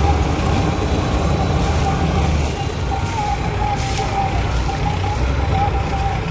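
Gahir self-propelled combine harvester running steadily while harvesting wheat: a deep engine drone with a thin steady whine above it.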